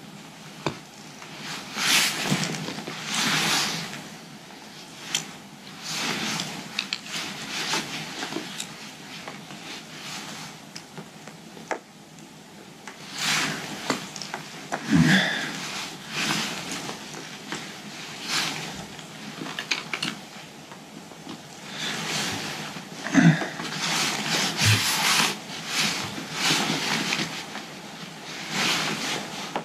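Rustling and scraping of a dry pack's nylon webbing straps and hip belt being handled and worked on by hand during a repair, in irregular bursts with scattered clicks.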